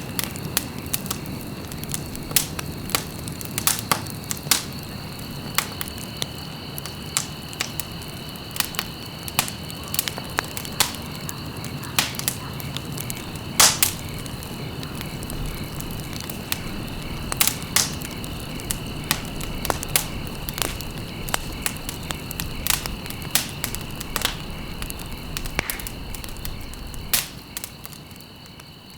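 Wood fire crackling, with frequent sharp pops and snaps over a low rumble of flames, and a faint steady high whine behind it. It fades out near the end.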